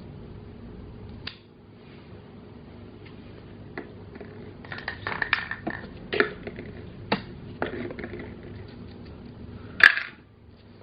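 Plastic toy cash register and play pieces being handled: scattered clicks and light knocks, busiest in the middle, with one sharp click near the end.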